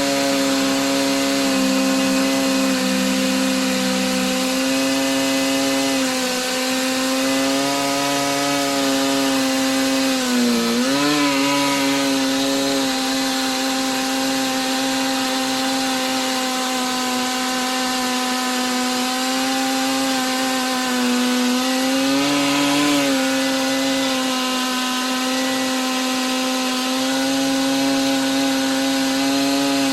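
Stihl MS880 two-stroke chainsaw with a 41-inch bar and ripping chain running at steady high speed under load, ripping lengthwise through a green pine log in an Alaskan mill. Its pitch dips briefly and recovers twice, once near the middle and once about two-thirds in.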